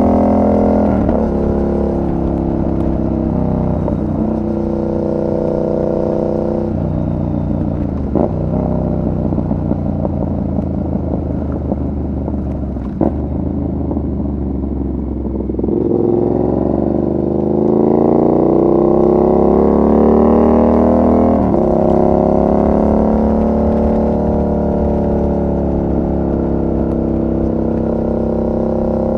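2019 Yamaha MT-07's 689 cc parallel-twin engine being ridden, its revs rising and falling with several quick drops in pitch as gears change. About halfway through there is one long rising pull before the next shift.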